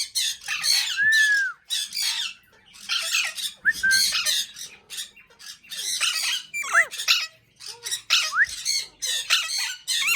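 Alexandrine parakeet (raw parrot) giving harsh, raspy squawks in repeated bursts, with a few short arched whistles mixed in.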